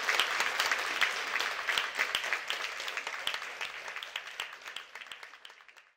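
Audience applauding, a dense patter of many hands clapping that fades away steadily toward the end.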